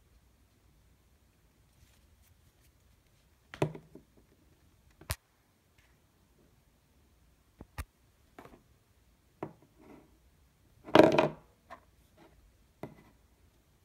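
Handling noises: a few separate clicks and knocks as a Funko Pop vinyl figure is handled and set down on a wooden desk, with a longer, louder rustle about eleven seconds in as clear plastic packaging is handled.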